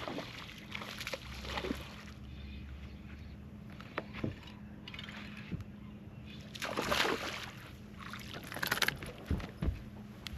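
Water sloshing and splashing beside a fishing boat in irregular bursts, loudest about two-thirds of the way through, over a faint steady hum.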